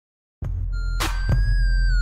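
Electronic intro music that starts about half a second in: a steady deep bass, two sweeping hits, and a held high tone that bends slightly in pitch.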